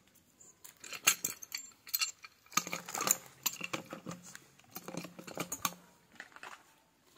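Irregular clicks and knocks of a pipe wrench gripping and turning the blue plastic compression nut on a black polyethylene water pipe, tightening the joint.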